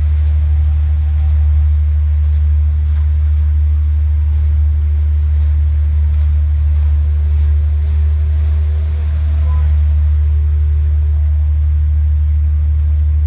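Wind buffeting the microphone, a loud, steady deep rumble that covers the scene.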